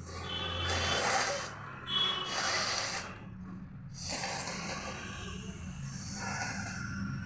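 A person blowing their nose hard: two forceful blows of about a second each, then a longer, softer blow.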